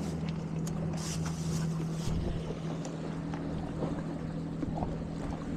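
A boat's engine running at a steady pitch, with light wind noise on the microphone.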